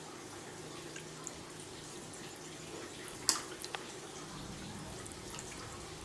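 Water dripping and trickling into a catfish tank over a faint steady hum, with one sharp click a little past three seconds in.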